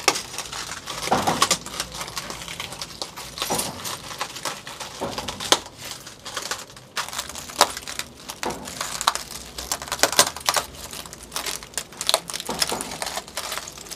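Broken glass and bottle shards crunching and clinking under bare feet as a man stands and shifts his weight on the pile: irregular sharp cracks and tinkles.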